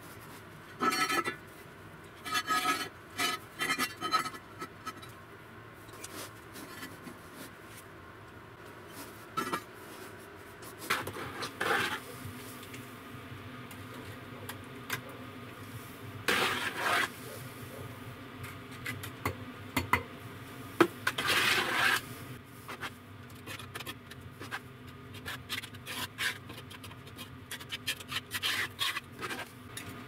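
Bricklaying on a firebrick stove: firebricks and steel strips shifted into place, and mortar scooped from a bucket and spread over the bricks, giving intermittent scrapes, rubs and clinks of brick and metal. A scraping spell a little past twenty seconds in is the loudest.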